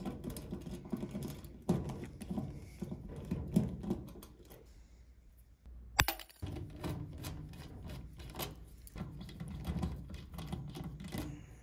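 Small clicks, taps and scrapes of hands and a screwdriver working at an electric dryer's terminal block, taking out the ground–neutral bonding strap for a four-prong cord, with one sharp click about six seconds in.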